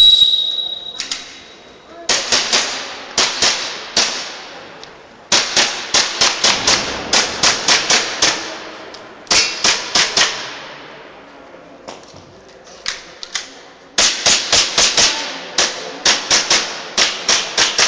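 A shot timer gives one short high beep, the start signal. An airsoft pistol then fires rapid strings of sharp shots with short pauses between strings, the longest string near the end.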